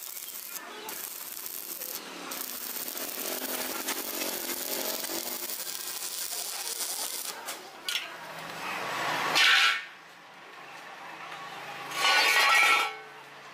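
Stick (shielded metal arc) welding on a corner joint of rectangular mild-steel tube: a steady hissing crackle of the arc for the first several seconds. Later come two louder surges of noise, one building up and cutting off suddenly, the other near the end; these are the loudest sounds.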